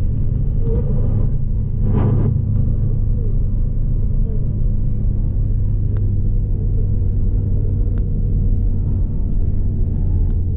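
Car driving along a road: a steady low engine and road rumble, with a brief rush of noise about two seconds in.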